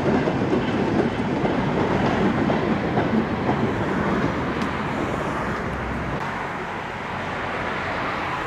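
A goods train's wagons and brake van rolling past on steel rails, the wheel noise loud at first and then fading away over the second half as the train draws off.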